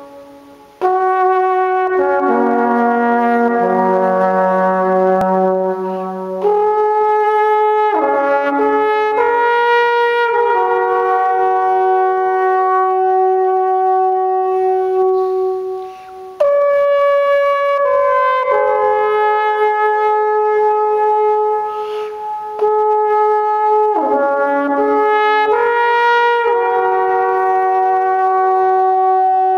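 Swiss alphorn played in slow phrases of long held notes, each note ringing on in the church's echo so that it overlaps the next one, with short breaths between phrases.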